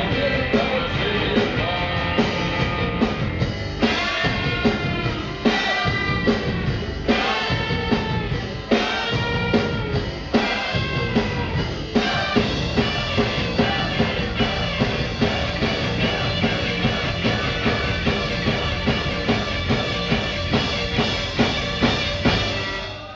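Live three-piece punk rock band, electric guitar, bass guitar and drum kit, playing with a steady driving drumbeat. The music breaks off right at the end.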